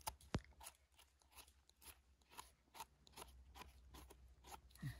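Wild mushroom stems being cut and trimmed: a run of faint, crisp crunching clicks, about two or three a second.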